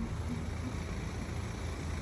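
Steady low rumble with an even hiss, the running noise of a moving vehicle.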